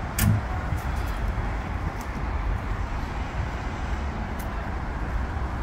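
Go-Ahead London double-decker bus E262 standing with its diesel engine idling in a steady low rumble. A short click and a low thud come about a quarter second in.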